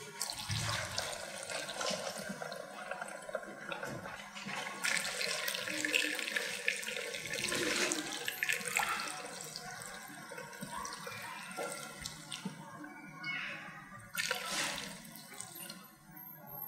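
Petrol being poured into the fuel tank of a Ryu two-stroke grass cutter, on top of a capful of two-stroke oil. It is a running stream of liquid that comes and goes in uneven surges.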